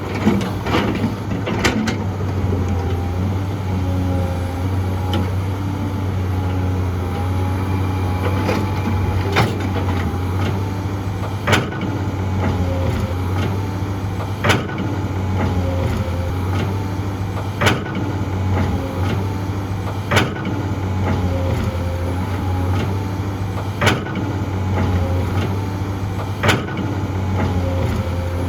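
The diesel engine of heavy earthmoving machinery running with a steady low drone, with a wavering whine over it. Sharp knocks come every two to three seconds through the second half.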